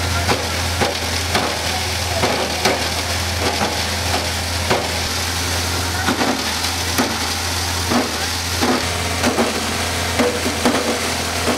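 Electric tomato-pulping mill running with a steady low hum as tomatoes are fed into its hopper by hand and crushed into pulp for tomato paste. Irregular short knocks come throughout as the tomatoes drop in and are crushed.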